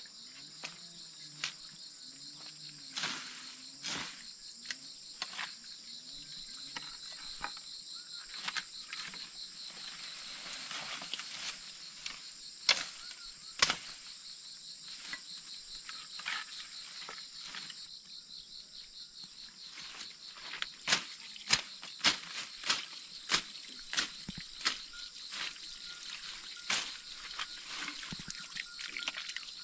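A steady, high-pitched insect chorus drones throughout, overlaid by sharp irregular cracks and snaps of a machete hacking through fern undergrowth and twigs, thickest in a run about two-thirds of the way in.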